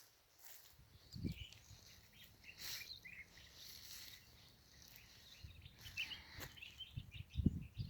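Outdoor ambience with scattered faint bird chirps and a few low thumps, the loudest near the end.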